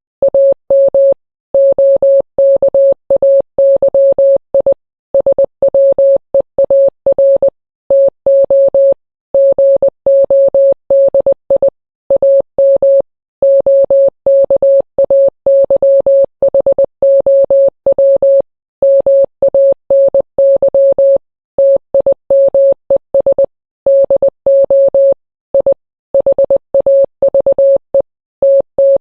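Morse code sent as beeps on one steady mid-pitched tone: a fast string of short and long beeps with brief gaps between letters.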